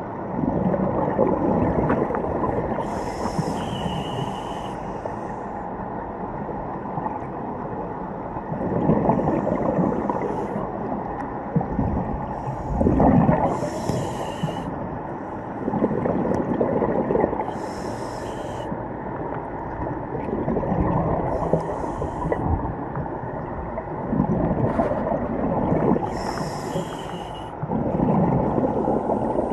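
A scuba diver breathing through a regulator underwater: short hissing inhales come about every four seconds, alternating with low, drawn-out bubbling exhales. These are the strange sounds that people took for human voices.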